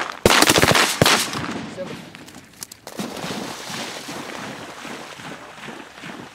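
Several shotgun blasts in quick succession during the first second or so, then a retriever splashing and running through shallow marsh water.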